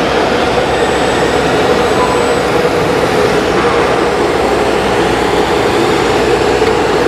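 Simulated diesel truck engine sound from the sound modules of radio-controlled model trucks, running steadily.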